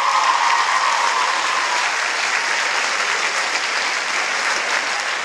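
Large crowd of teenagers in an auditorium applauding. A held group cheer fades out in the first second or two, leaving steady clapping.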